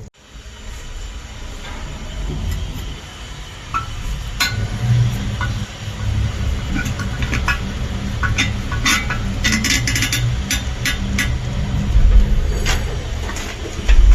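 Scattered sharp clicks, taps and clinks over a steady low rumble, busiest in the middle and louder near the end.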